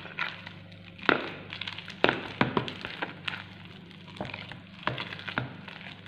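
A spoon stirring a thick bread-and-potato mixture in a bowl, clicking and scraping against the side of the bowl at irregular moments. The sharpest knocks come about one and two seconds in.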